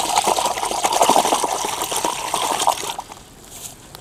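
Water gushing and splashing as a chicken is washed; the flow stops about three seconds in, leaving a few small splashes.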